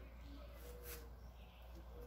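Near silence: a steady low hum, with one faint click just under a second in.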